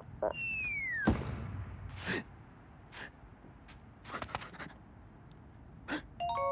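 Cartoon sound effects: a whistle that falls in pitch and ends in a thud about a second in, then a few short taps and swishes, and a held musical chord that starts near the end.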